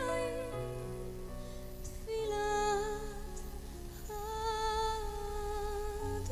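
A slow worship song: a woman's voice holding long, wavering notes over sustained chords, moving to new notes about two and four seconds in.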